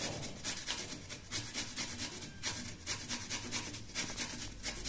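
Pieces of fresh coconut grated on a handheld flat metal grater: quick, repeated rasping strokes.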